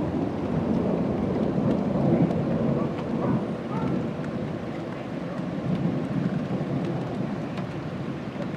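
Rolling thunder from a cloud-to-ground lightning strike: a long low rumble that peaks about two seconds in and slowly dies away.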